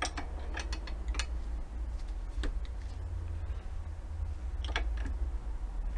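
Scattered light metallic clicks from a pump hose's brass fitting being handled and tightened on a brake caliper's bleed nipple, over a steady low hum.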